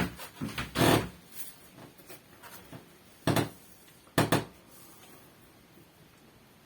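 A few clunks and knocks from bicycle wheel parts being handled and set down: a short rustle with a knock about a second in, a sharp knock a little past three seconds, and a quick double knock about a second later.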